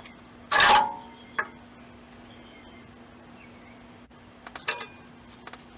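A sharp metal clank with a brief ring about half a second in, then a light click, and a few small clicks near the end, as metal brake parts are handled while the rear caliper comes off its bracket.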